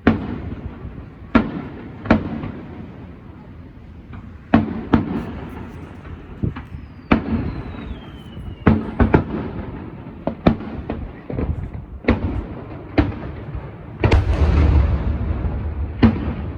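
Aerial fireworks bursting: more than a dozen sharp booms, each trailing off in an echoing rumble. A thin falling whistle comes about seven seconds in, and a denser rumbling volley about fourteen seconds in.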